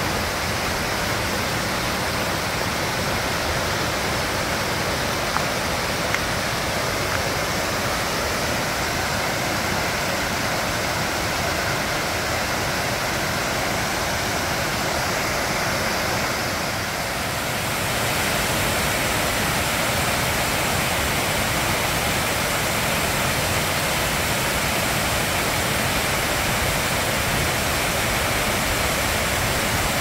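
Wide cascading waterfall pouring over stepped rock ledges into a pool, a steady rushing roar of falling water. A little past halfway the rush grows slightly louder and brighter.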